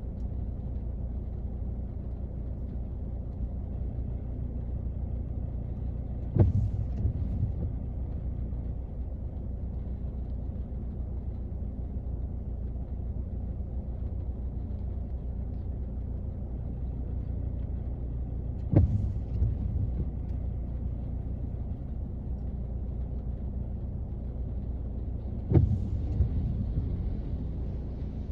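Rain on a car's body heard from inside the car, a steady low rumble. Three sudden loud knocks come about 6, 19 and 26 seconds in, each dying away over about a second.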